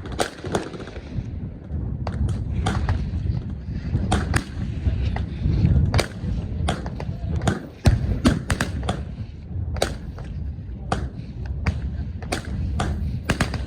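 Gunfire from many guns at a machine gun shoot: sharp reports at irregular, overlapping intervals over a steady low rumble.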